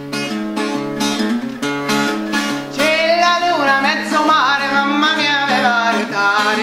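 Background music: plucked acoustic guitar playing steady notes, joined about three seconds in by a singing voice.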